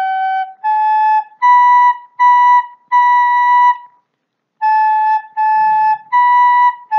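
Wooden soprano recorder playing a simple phrase of separate tongued notes on G, A and B (sol, la, si), one note held longer, then a short pause about four seconds in before the phrase goes on.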